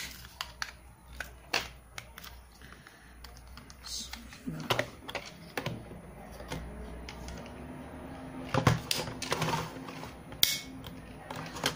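Scattered sharp plastic clicks and handling rattles as a smartphone holder is fitted and locked onto a drone's remote controller.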